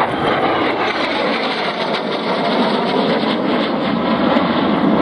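Steady rushing jet noise from a Swiss Air Force F-5E Tiger II's twin J85 turbojets as the fighter flies past in a climbing turn.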